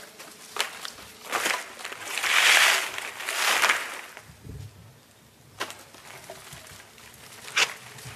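Bundles of dry brushwood twigs rustling and crackling as they are gathered up and handled, with two long, loud rustles about two to four seconds in and a few sharp snaps of twigs.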